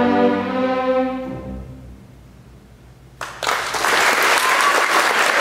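String orchestra's final held chord dying away over about two seconds, then a short hush before audience applause breaks out suddenly about three seconds in.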